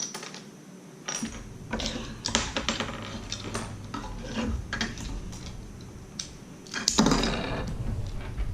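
Plastic Lego bricks clattering and clicking as pieces are handled and fitted together, with a louder rattle of bricks about seven seconds in.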